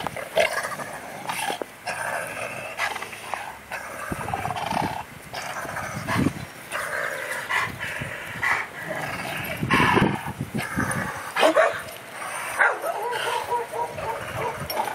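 Two dogs, a yellow Labrador and a black-and-tan dog, vocalizing during a tug-of-war over a stick: repeated whines and yips with a few short barks.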